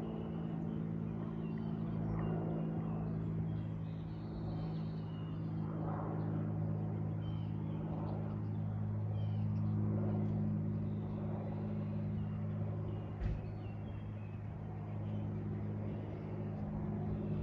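Light piston-engine aircraft droning overhead: a steady low engine-and-propeller hum that swells a little about halfway through. Faint bird chirps are heard over it.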